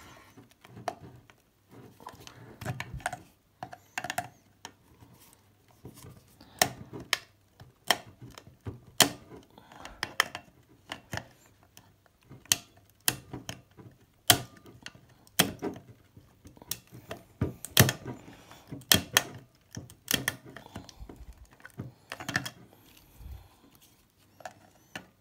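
Flat-blade screwdriver prying at a hard plastic bottle security cap, making irregular clicks, taps and scrapes of metal on plastic as it works at the cap's hinge rivet.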